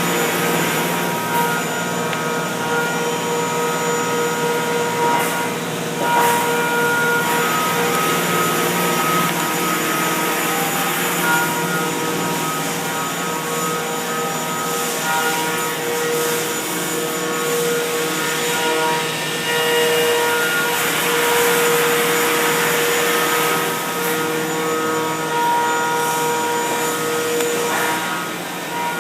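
Mazak CNC milling machine cutting copper: a steady machining noise with several whining tones that shift in pitch from time to time.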